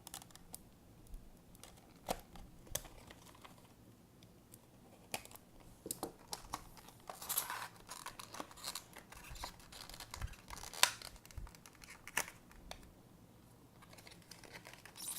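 Hands opening a trading-card trial deck box: scattered clicks, scrapes and rustles as the packaging is torn and the cardboard and plastic are handled, with one sharper click about two-thirds of the way through.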